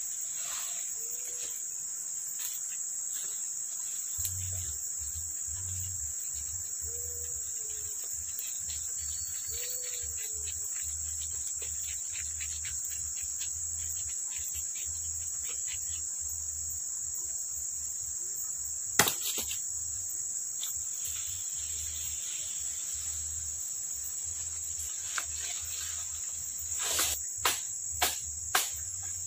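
Steady, high-pitched chorus of forest insects. A single sharp knock comes about two-thirds of the way in, and a quick run of four knocks comes near the end.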